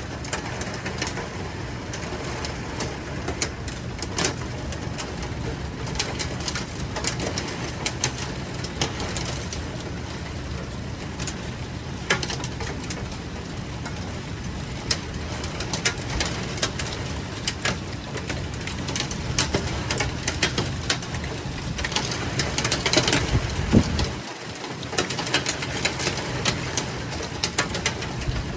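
Rain ticking on a moving car, over a steady low drone of road and engine. The drone drops away for a moment near the end.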